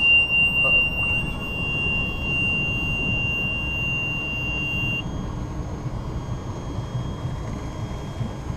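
A steady high-pitched electronic beep from the motorboat sounds continuously, then cuts off about five seconds in, over the low rumble of the boat under way on the water.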